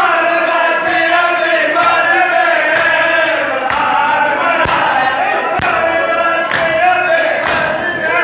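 A crowd of men chanting a noha together in a loud, echoing hall, with sharp matam chest slaps from many hands landing together about once a second.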